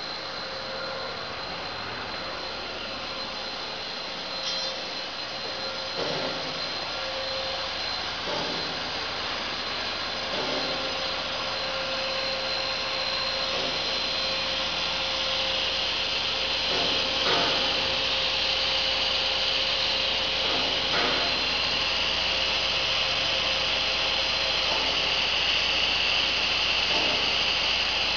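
Running HDPE pipe extrusion line: steady machinery noise with a constant high whine and a lower hum, a few short knocks, and a hiss that grows louder in the second half.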